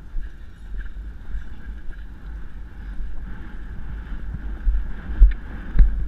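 Wind buffeting a helmet-mounted camera's microphone as a horse canters on grass, with the muffled thud of its hoofbeats. Two heavier thumps come near the end as the horse nears a fence.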